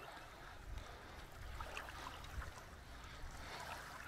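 Small waves lapping on a sandy lake shore, with light splashes every so often over a low rumble.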